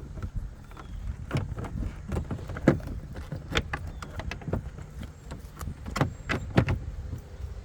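Plastic tail light housing being slid and pushed back into the car body: a string of irregular clicks and knocks, a few of them sharper and louder, over a steady low hum.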